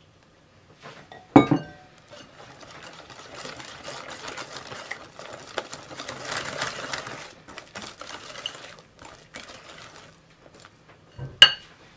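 A wire whisk beating melted chocolate and butter into a whipped egg-yolk batter in a glass bowl, a quick scraping and slapping that goes on for several seconds. The whisk strikes the glass bowl sharply, with a short ring, about a second in and again near the end.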